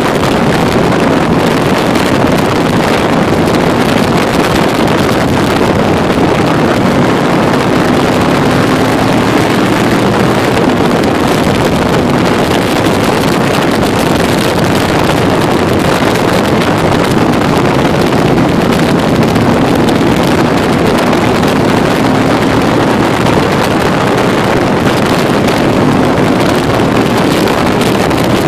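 Can-Am Spyder three-wheeled motorcycle's engine running at road speed, under heavy wind buffeting on the microphone.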